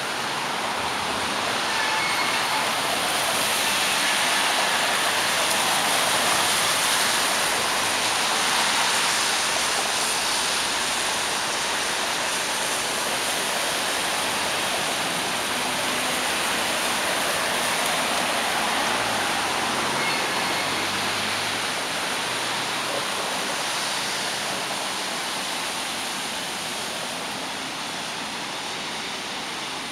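Steady hiss of city traffic on wet roads: tyres running on wet tarmac, with no single vehicle standing out.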